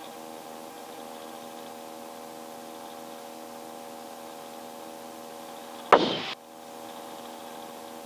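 Helicopter engine and rotor drone in the cabin, a steady hum of several tones. About six seconds in, a brief loud burst of noise lasting under half a second cuts in, followed by a moment of lower level.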